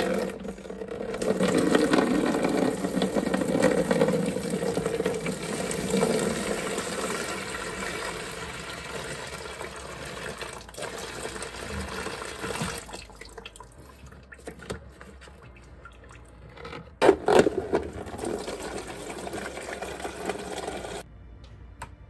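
Water from a toilet tank pouring out through the open fill-valve hole in the tank's base and splashing into a plastic tray, loud for the first dozen seconds, then easing off. A brief louder burst comes about five seconds before the end.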